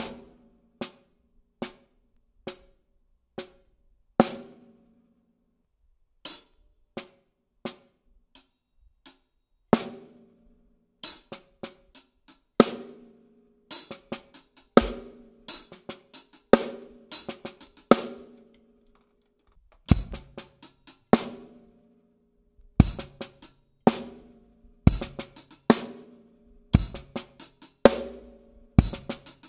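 Snare drum played with sticks, working through the six-stroke roll rudiment (sticking RLLRRL, accented at each end): slow, single strokes spaced about a second apart at first, then quicker grouped strokes. From about halfway, deep bass drum thuds join the groups, and near the end the right stick plays on a cymbal.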